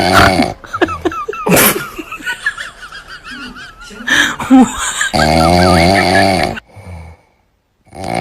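Loud snoring in long drawn-out snores, one ending about half a second in and another running from about five to six and a half seconds. Between them come wavering high-pitched squeaky sounds, and there is a short break in the sound near the end.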